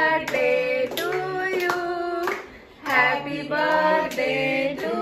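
Woman and child singing together with hands clapping in time, roughly every two-thirds of a second, as a birthday cake is cut.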